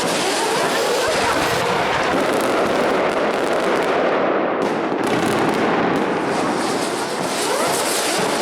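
A dense, continuous barrage of fireworks: firecrackers crackling without a break, with many short rising whistles mixed in.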